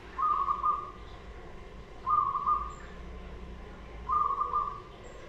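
Zebra dove (perkutut) cooing: three short, burry coos at a steady pitch, evenly spaced about two seconds apart.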